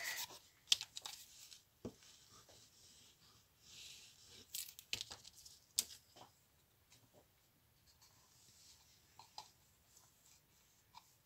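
Faint rustling and scraping of stiff cardstock and paper as hands handle and press the panels of a paper pop-up box, with a few sharp clicks and taps scattered through.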